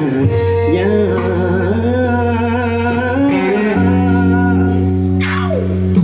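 Live busking band playing the closing bars of a Malay pop song. An electric bass holds long low notes beneath guitar, with a wavering held melody note above them, and a quick falling glide comes near the end.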